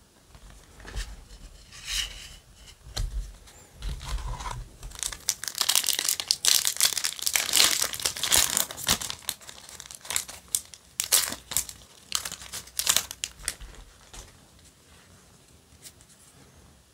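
Foil Yu-Gi-Oh! booster pack crinkling and tearing as it is ripped open by hand, a run of sharp crackles that is loudest in the middle and dies away about three seconds before the end.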